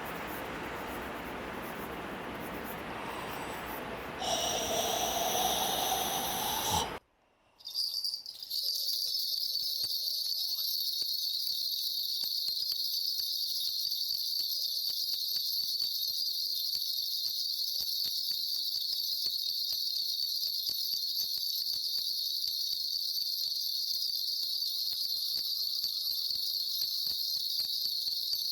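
Steady high-pitched chirring of insects, like a cricket chorus, setting in about eight seconds in after a stretch of hiss-like noise and a brief dropout.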